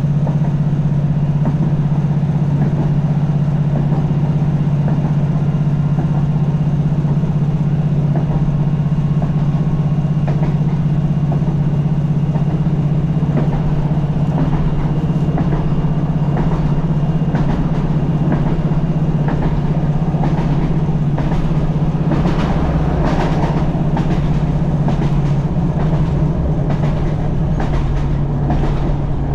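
Inside a Northern Class 156 diesel multiple unit underway: the underfloor Cummins diesel engine runs with a steady low drone. From about halfway on, the wheels click over the rails, more often in the last few seconds. The engine's tone shifts slightly near the end.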